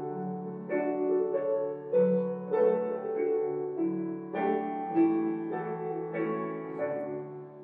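Piano playing the introduction to a hymn: slow, held chords that change every second or so, fading out near the end just before the singing comes in.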